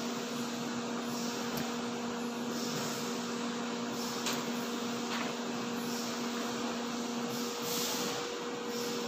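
Steady machine hum with a constant hiss, and a couple of faint clicks about four and five seconds in.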